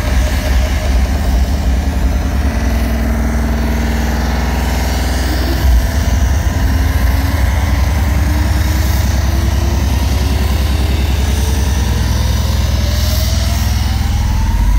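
Hardstyle dance music played very loud over a festival sound system and picked up by a phone in the crowd, with a heavy bass. From about six seconds in, a sweep rises steadily in pitch as the track builds.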